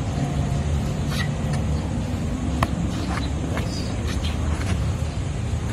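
Steady rumble of city traffic with a vehicle engine droning, and several short sharp clacks, the strongest about halfway through, from the sparring sticks striking.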